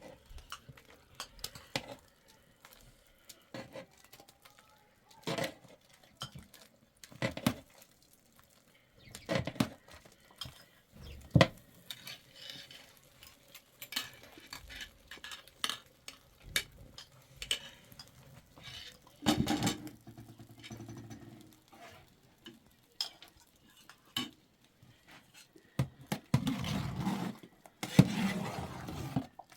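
Pots, dishes and utensils clinking and knocking now and then, with a longer stretch of scraping or stirring near the end.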